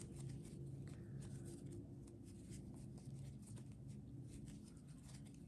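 Faint, frequent rustling and scratching of a crochet hook pulling yarn through stitches, over a low steady hum.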